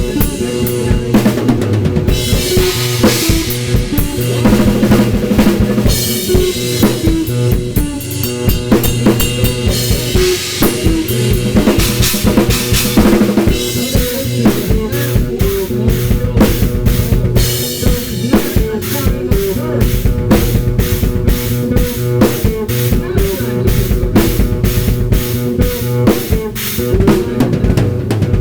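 Drum kit with Paiste cymbals played in a fast, busy improvisation, dense snare, bass-drum and rim strokes, over a sustained low pitched part from a guitar riff triggered on a sampling pad. Cymbal wash swells about two to four seconds in and again around twelve seconds.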